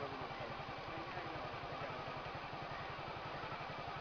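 A small engine running steadily at idle, a low, even putter.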